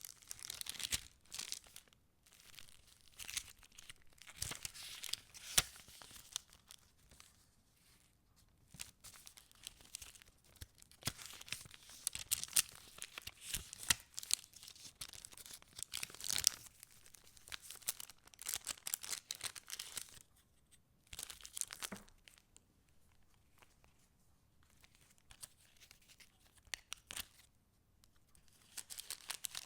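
Paper pages and paper ephemera of a handmade junk journal being handled and turned, rustling and crinkling in bursts with crisp little clicks. There are quieter pauses about a third of the way in and again in the last third.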